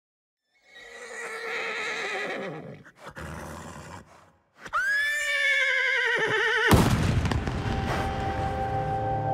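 A horse whinnying twice, the second whinny louder, sharply rising then wavering and falling. About two-thirds of the way through, a sudden hit starts sustained music of steady held tones.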